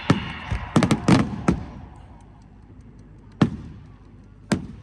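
Fireworks going off: a quick run of about five sharp bangs in the first second and a half, then two single bangs later, each trailing off in a short echo.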